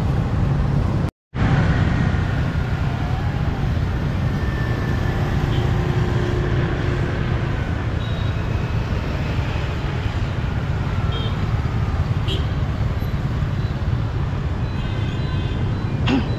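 Road traffic: motorbikes and cars going by as a steady low rumble, broken by a brief audio dropout about a second in.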